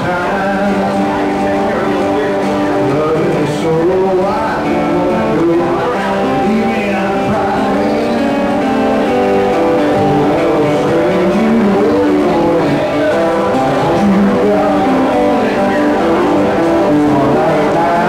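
Live music played on two acoustic guitars.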